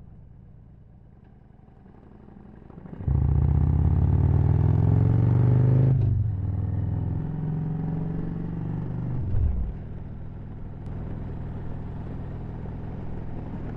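Harley-Davidson Road Glide Ultra's V-twin engine, low and quiet at first, then opening up about three seconds in with revs climbing, shifting up about halfway through, and settling to a steady cruise.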